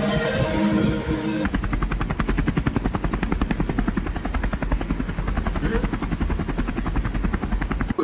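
Music for about the first second and a half. Then comes a helicopter's rotor and engine heard from inside the cabin: a rapid, even pulsing over a heavy low rumble.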